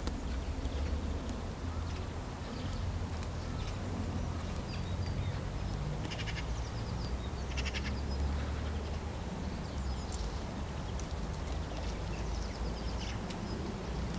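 Wind rumbling on the camera microphone, with twigs of a blackthorn and bramble hedge rustling and crackling now and then as hands and the camera push through them. A few short high chirps come in around the middle.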